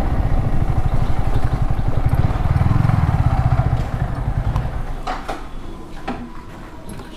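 Yamaha R15 V3's single-cylinder engine running as the motorcycle rolls slowly, then dying down from about four seconds in as it eases off into the shed. A few light clicks follow near the end.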